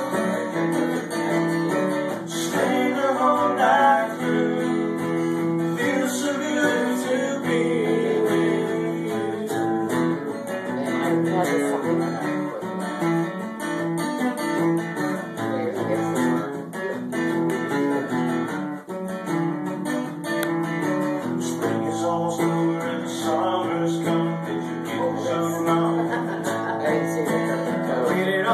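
Steel-string acoustic guitar strummed in a steady country rhythm, with a man's voice singing along at times.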